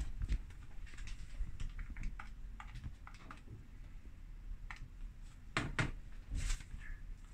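Scattered light clicks and taps of things being handled on a kitchen worktop, with a few sharper knocks about five and a half to six and a half seconds in.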